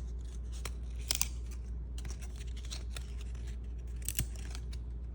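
Cardboard trading cards from an old pack being pulled apart and flipped, with a few sharp snaps and scrapes as cards that are stuck together come loose. A low steady hum runs underneath.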